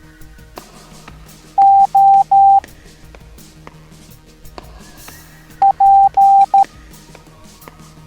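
Morse code sent as a single steady beep tone: three long dashes (the letter O), then a few seconds later short-long-long-short (the letter P). Quiet background music plays underneath.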